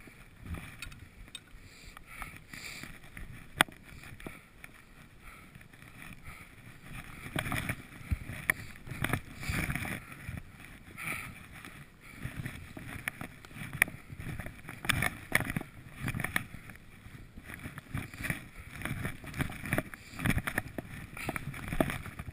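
Skis swishing through deep powder snow in a run of turns, an uneven rushing that swells and fades, with scattered sharp clicks and knocks. The swishing grows busier about seven seconds in.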